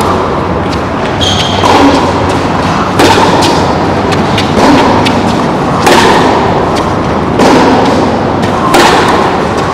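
Tennis ball struck by rackets in a baseline rally on a covered hard court: a steady run of sharp hits about every one and a half seconds.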